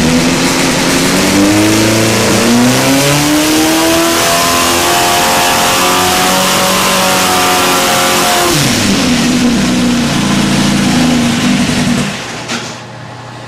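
Air-cooled Volkswagen Type 1 engine running a pull on an engine dyno, its revs climbing steadily for about eight seconds. The throttle then closes and the revs fall sharply, leaving the engine running lower and unevenly before it quietens near the end.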